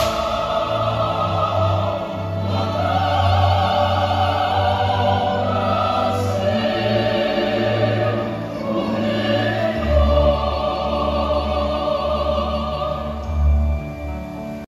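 Operatic singing with a choir and orchestra: sustained, vibrato-laden voices over held low notes.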